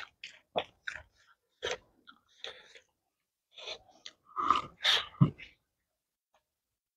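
Close-miked eating sounds: wet chewing of rice and pork with scattered lip smacks and finger-sucking clicks, with a louder cluster of smacks about four and a half to five seconds in.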